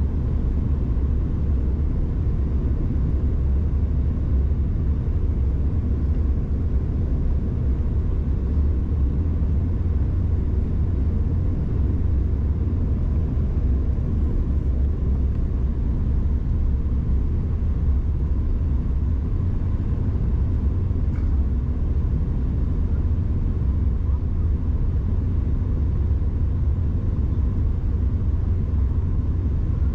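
Steady low rumble of a Bombardier CRJ-700 regional jet in flight, heard inside the cabin: airflow over the fuselage and the drone of its rear-mounted turbofans, unchanging throughout.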